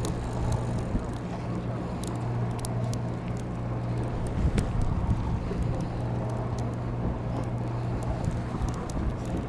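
A fishing boat's engine drones steadily close by, while a conventional saltwater reel is cranked in by hand, with a few sharp ticks a couple of seconds in.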